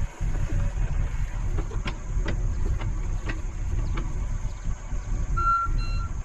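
A John Deere 60G mini excavator's diesel engine running steadily under working load, with several sharp clanks and knocks in the middle, and two short high beeps near the end.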